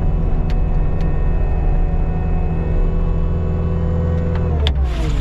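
Engine running steadily with a low drone, its pitch falling about four and a half seconds in as it slows down, with a short hiss just before the end.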